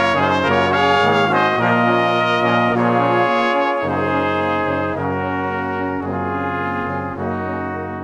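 Background music of sustained chords over a steady bass, the notes changing every second or so.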